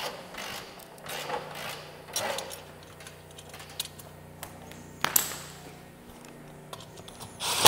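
Scattered clicks and knocks of hand tools and an air hose being handled in a workshop, over a faint steady low hum. A sharper click comes about five seconds in and a louder knock near the end.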